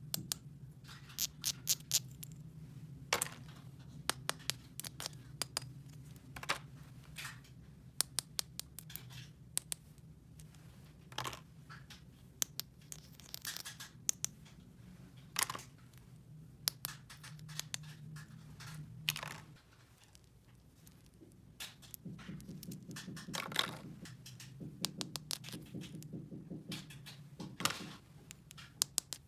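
Small plastic toy parts and packaging being handled: many sharp clicks and taps, with stretches of scraping and tearing, over a steady low hum.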